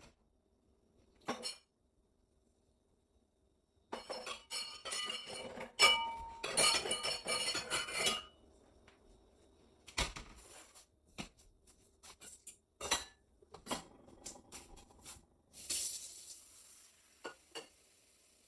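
Kitchen dishes, glassware and utensils clinking and clattering: a dense run of clinks with brief ringing tones, then scattered knocks and taps. A short hiss comes about three-quarters of the way through.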